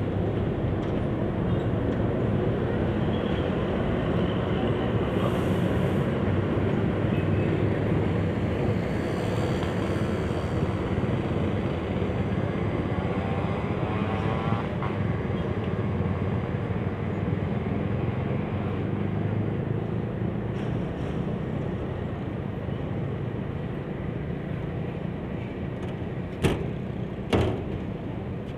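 CC206 diesel-electric locomotive running at low speed as it hauls a railway crane train over the yard tracks: a steady engine rumble with wheel and rail noise. Two sharp knocks near the end.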